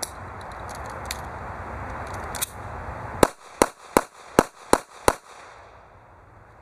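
Taurus Curve .380 ACP pistol fired six times in quick succession, about three shots a second, a little past the middle.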